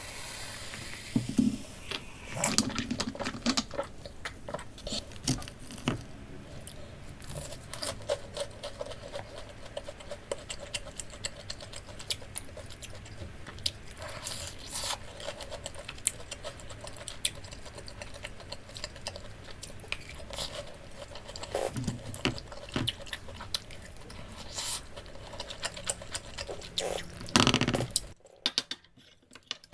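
Eating sounds from a pork cutlet meal: cutlery clicking and scraping on a plate, mixed with crunchy chewing, in irregular bursts. There is a brief near-silent gap near the end.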